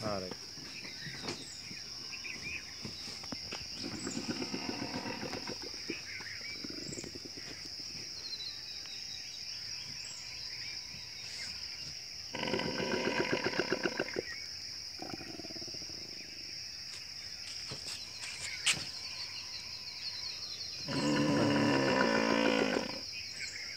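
Steady high-pitched drone of insects calling. Two louder voice-like sounds of about a second and a half each rise over it, one about halfway through and one near the end.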